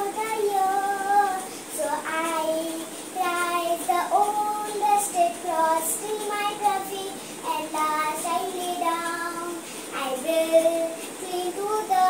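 A young girl singing solo with no accompaniment, holding notes in short phrases with brief breaks between them.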